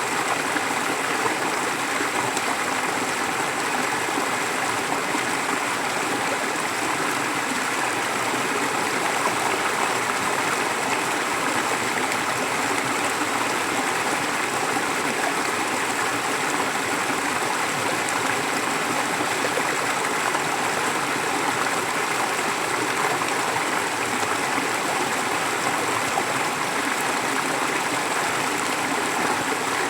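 Forest stream flowing steadily, a continuous rush of water over stones with no pauses or changes.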